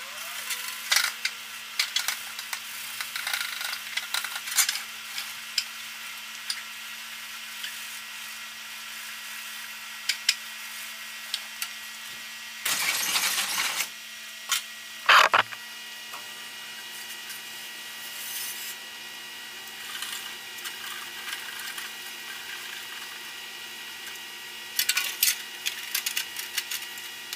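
Hand-scrubbing of a painted sheet-metal inner fender liner with a sponge, in scattered scraping and knocking strokes, with a short hissing rush around the middle and a steady hum underneath.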